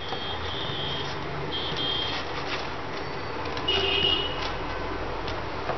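Three short high-pitched beeping tones over a steady background hum.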